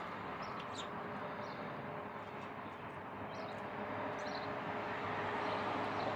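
Steady background rumble of distant traffic, growing somewhat louder over the last couple of seconds, with a few faint high bird chirps in the first half.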